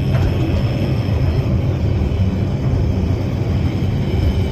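Cable-hauled Shipley Glen Tramway car running down its track as it slows near the bottom: a steady, low rumble with a faint high whine.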